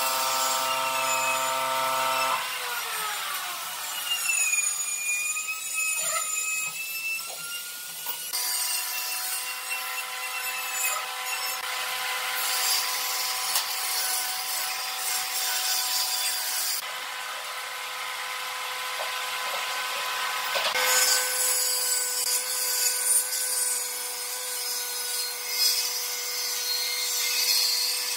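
Power tools working wood: a motor runs at a steady pitch while wood is ground and sanded. The motor's pitch falls away about two seconds in. The abrasive hiss of the cutting comes and goes in several passes, dropping out for a few seconds in the latter half.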